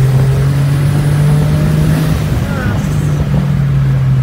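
Turbocharged 1.0-litre three-cylinder engine of a tuned VW Up TSI droning steadily under way, heard from inside the cabin, with a brief change in pitch a little over two seconds in.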